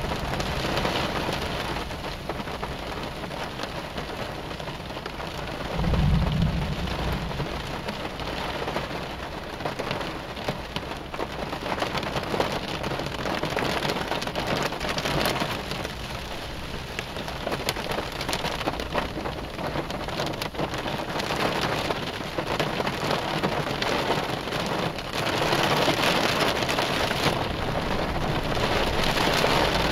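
Heavy rain falling on a car, with one low rumble of thunder about six seconds in. The rain grows heavier near the end.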